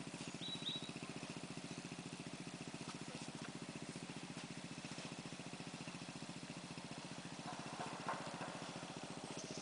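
ATV engine running steadily at idle, with an even pulsing beat at a constant pitch.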